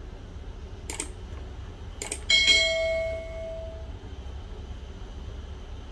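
Two short mouse-style clicks, then a bright bell ding that rings on for about a second and a half: the click-and-bell sound effect of a YouTube subscribe-button animation.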